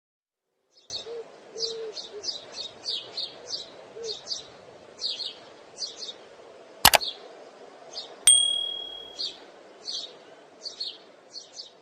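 Alexandrine parrot chirping in short, high calls, about two a second. A sharp click comes about seven seconds in, and just after eight seconds a metallic ding rings on steadily for about a second.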